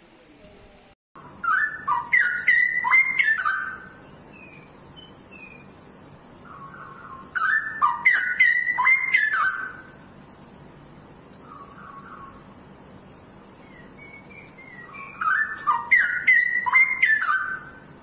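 Straw-headed bulbul (cucak rowo) of the pied 'blorok' colour form singing: three loud song phrases of about two seconds each, several seconds apart, with a few softer notes between them.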